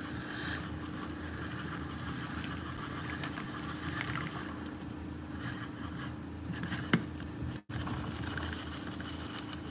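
OXO hand-crank rotary egg beater whirring steadily as its beaters churn eggs and liquid into flour in a glass bowl.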